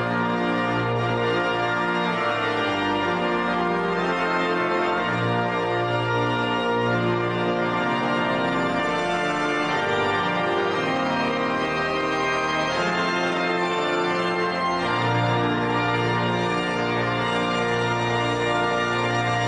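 Organ music: slow sustained chords, each held for a second or two before moving to the next, at a steady level.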